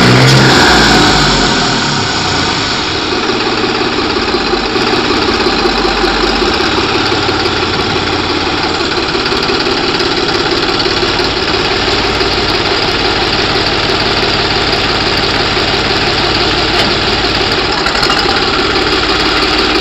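New Holland 3630 tractor's three-cylinder diesel engine running through its modified silencer. It is louder for the first two seconds, then settles into a steady idle.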